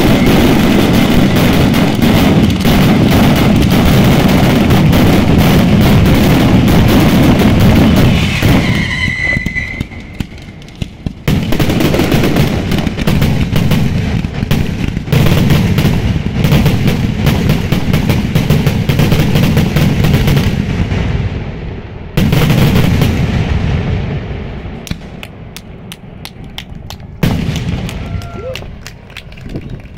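Mascletà finale, the big bombs called "the earthquakes": a dense, continuous barrage of firecracker bangs and deep booms. It comes in four waves that each start suddenly and then thin out, the last a short one near the end.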